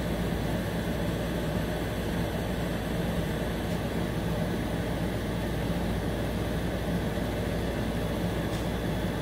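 Steady drone and hiss of building ventilation with a faint low hum, unchanging throughout.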